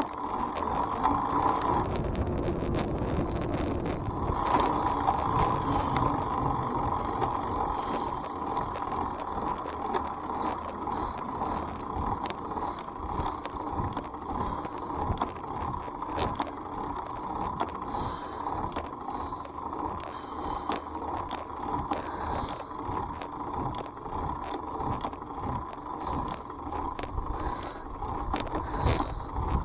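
Riding noise from a bicycle in motion: a steady whine with a low rumble and frequent small rattles and clicks. The whine drops out briefly about two seconds in and comes back a couple of seconds later.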